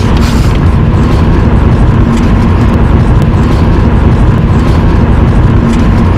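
Loud, steady outdoor rumble and hiss on a handheld camera's microphone, with a faint steady hum underneath, starting abruptly.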